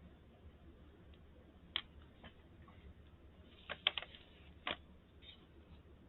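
Faint small clicks and taps of an M.2 solid-state drive being handled and fitted into its slot in a laptop: about six sharp ticks, with a quick cluster of three near the middle.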